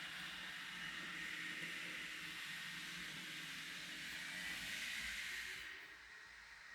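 Unidentified machine from the flat upstairs, a steady hiss with a low hum heard through the ceiling, that cuts off near the end.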